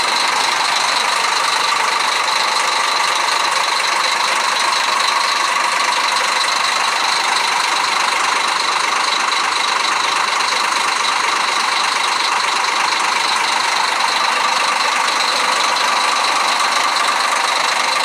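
Scania DC13 12.7-litre six-cylinder turbodiesel idling steadily, heard up close through the open rear engine compartment of the bus.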